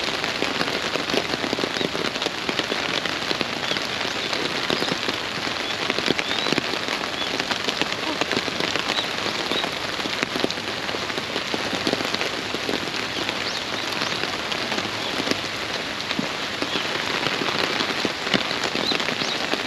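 Steady rain, with many separate sharp drop hits throughout.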